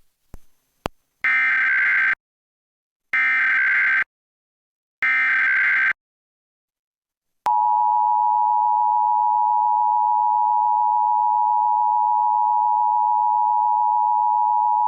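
Emergency Alert System SAME header: three identical bursts of shrill digital data screech, each about a second long with about a second between them. About seven and a half seconds in, the EAS two-tone attention signal begins, a steady harsh dual tone that marks the start of the alert.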